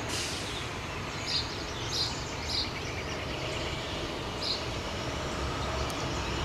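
Outdoor ambience: steady background noise with a small bird chirping briefly four times.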